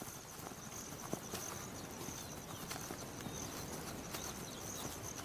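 Ostrich and chicks walking through grass: soft, irregular footfalls, with a steady high insect drone.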